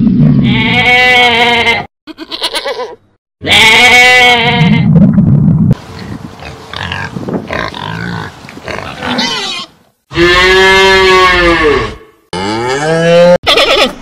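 Camel calling in loud, long, wavering groans, twice in the first six seconds. Quieter snuffling and grunting follow, then two more loud animal calls near the end.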